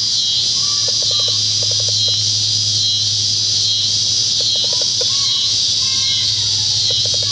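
Chorus of late-summer insects droning high and steady, with a low steady hum beneath and a few short trains of quick pips.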